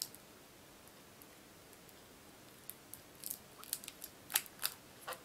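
Fingers handling a smartphone and picking at its protective plastic film: one click at the start, then faint room tone, then a quickening run of sharp clicks and crackles over the last two seconds or so.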